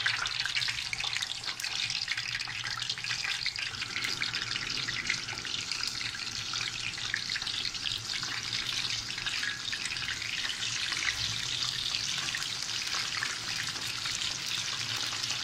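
Coated chicken pieces deep-frying in hot oil in a pan: a steady sizzle with dense fine crackling.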